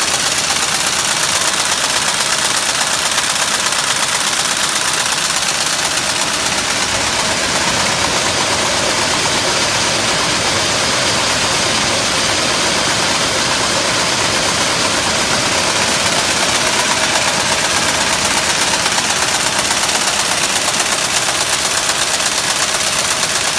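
Soudronic FBB 400 can body welder line running in production: a loud, steady, dense mechanical clatter of the bodymaker with its conveyor carrying welded can bodies to the curing oven.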